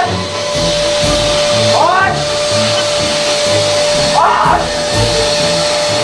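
Background music with a steady beat over the steady whir of an electric air pump inflating a giant balloon.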